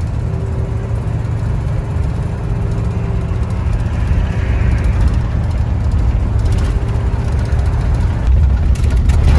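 Road and engine noise inside a vehicle's cabin cruising on a paved highway: a steady low rumble, with a faint whine that comes and goes.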